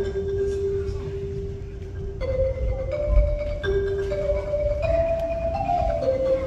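Marimba played solo with mallets: a slow melody of single long-held notes, each lasting about one to two seconds, stepping up and down in pitch.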